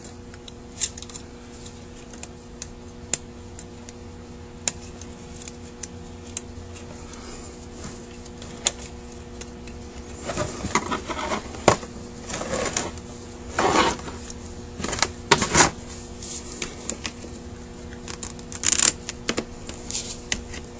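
Small metal parts of a Carter WA-1 carburetor clicking and clattering as it is taken apart by hand: a few light clicks at first, then busier rattling and scraping from about halfway through.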